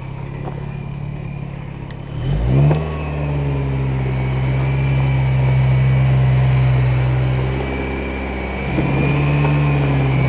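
Engine of a modified four-wheel-drive pickup crawling over rocks and logs. It runs low at first, revs up about two seconds in and holds higher revs, eases off briefly near the end, then picks up again.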